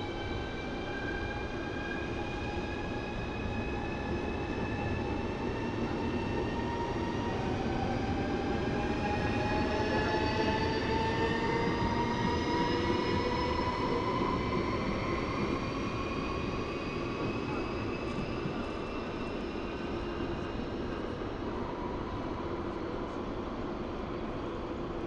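Two coupled ES1 'Lastochka' (Siemens Desiro RUS) electric multiple units accelerating away from the station. Several whining tones from their traction drive rise slowly in pitch over a steady running noise, loudest about halfway through, then fade.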